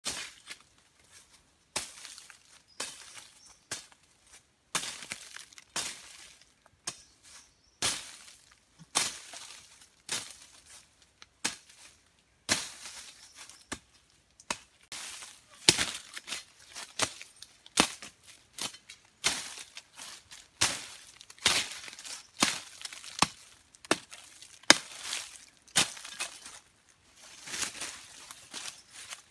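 Blade chopping at saplings and brush stems at ground level: sharp, irregular strokes roughly once a second, with leaves rustling between them.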